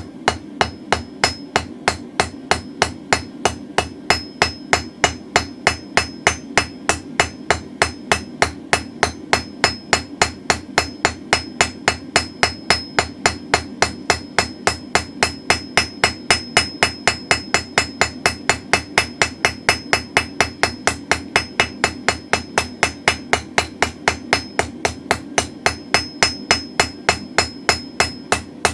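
Hand hammer striking hot mild steel on an anvil in a steady, even rhythm of about three to four blows a second, each blow ringing high, as the round taper of a drift is smoothed and blended in. A steady low hum runs underneath.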